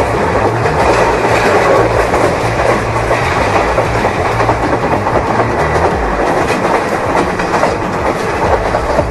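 A train running along the track, its wheels clattering steadily over the rails with a dense rumble.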